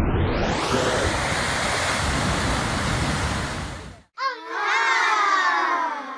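Ocean surf breaking and churning against a lava-rock shore, a steady rushing noise that cuts off suddenly about four seconds in. A pitched sound with several overtones follows, sliding slowly downward.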